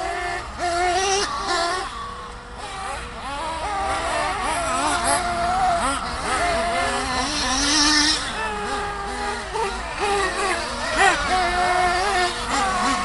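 Small nitro engine of an RC buggy running at high revs, its whine rising and falling again and again as the throttle is blipped and released.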